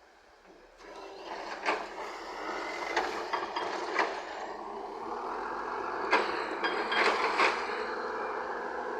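Heavy earthmoving machinery at work loading murram, coming in about a second in as a steady rush of noise broken by several sharp knocks and clanks.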